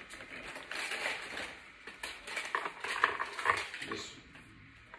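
Rustling and crinkling of a seaweed packet being handled, with a few sharp clicks and taps against a plastic lunch container. The handling comes in two spells, the second with the loudest clicks, and quietens near the end.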